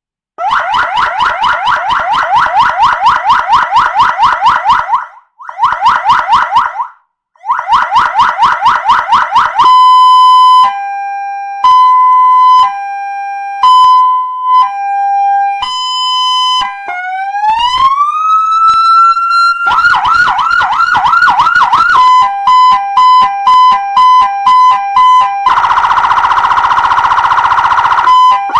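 12-volt electronic car siren with a 200-watt horn speaker, played loud and stepped through its tones. First a fast yelp that cuts out twice, then a slow two-note hi-lo and a rising wail. Then the fast yelp again, a quick hi-lo and a harsh buzzing horn tone, with the yelp back near the end.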